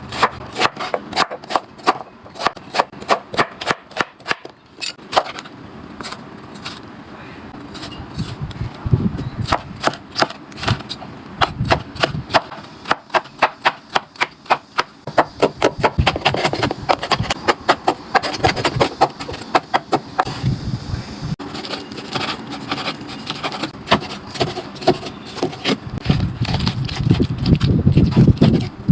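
Knife chopping rapidly on a cutting board, about four strokes a second, with a couple of short pauses.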